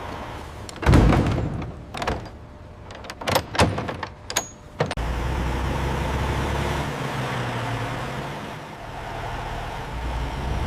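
Several sharp knocks and clatters, the loudest about a second in, then from about five seconds a steady low mechanical hum.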